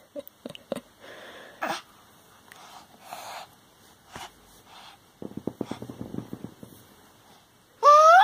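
Baby's breathy little grunts, mouth clicks and a creaky grunt, then near the end a loud high squeal that rises and then falls in pitch.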